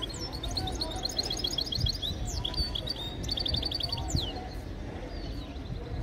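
A caged songbird singing a fast run of high chirps and trills that ends with a quick falling whistle about four seconds in, followed by a few faint chirps, over low steady background noise.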